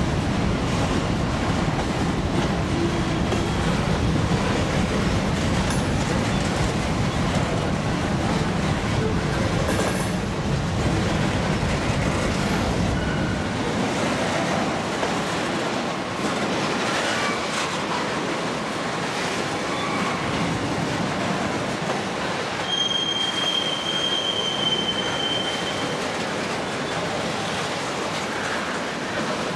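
Freight trains of covered hopper cars rolling past, a steady rumble and rattle of steel wheels on rail whose deep low rumble drops away a little under halfway through. About three-quarters of the way in, a high steady wheel squeal rings out for about three seconds.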